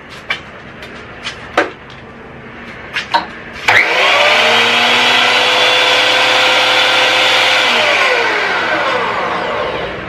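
Güde GADH 200 jointer-thicknesser's 1250 W motor and two-knife cutterblock switched on about four seconds in, running up at once to a loud steady whine, then switched off and winding down in falling pitch over the last two seconds. It starts now that the hood's safety switch is properly latched. A few sharp clicks come before it starts.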